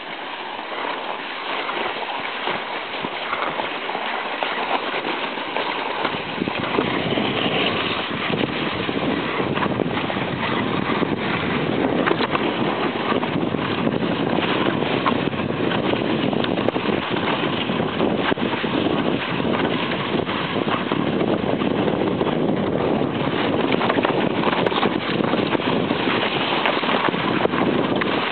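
Sledge sliding down a packed-snow track, a continuous rushing scrape of the runners on the snow mixed with wind on the microphone. It grows louder and fuller about six seconds in.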